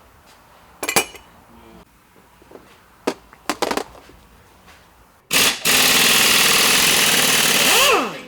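A few light metallic clicks and knocks, then an impact wrench hammering hard for about three seconds on a transmission fastener, stopping abruptly near the end. The shaft turns with the wrench, so the fastener does not break loose.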